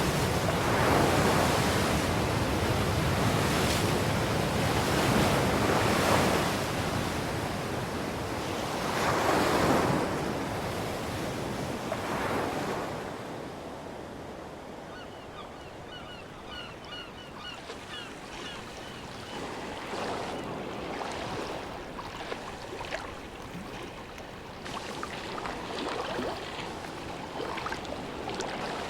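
Sea waves breaking on a beach, each surge swelling and falling every few seconds. About halfway through the surf turns softer, into lapping and small splashes, with a run of short high chirps for a few seconds.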